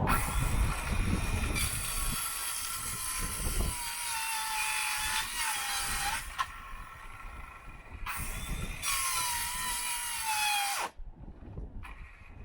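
Cordless drill running in two long runs, its motor whine sagging in pitch before each stop as the battery goes flat.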